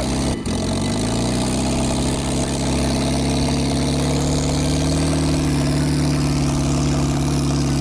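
Lada inline-four engine running with a piece cut out of its flywheel, severely unbalanced and shaking violently. The revs rise slightly about a second in, then hold steady.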